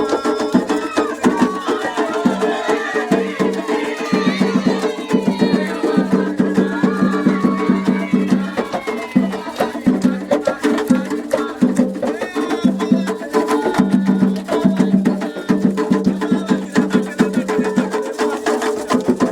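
Candomblé ketu ritual music: hand drums (atabaques) beating a fast, dense rhythm with a sharp bell or wood-block-like timeline stroke. Singing voices join over the drums in the first half.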